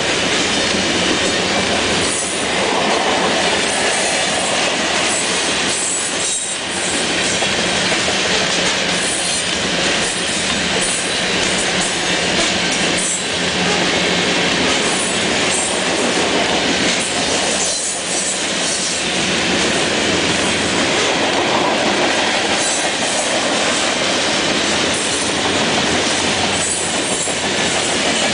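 Covered hopper cars of a long freight train rolling past close by: loud, steady noise of steel wheels running on the rails.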